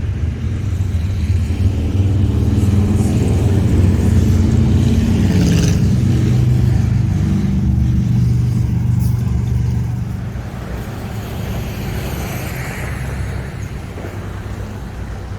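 A motor vehicle engine running with a low, steady sound that grows louder over the first couple of seconds and eases off after about ten seconds.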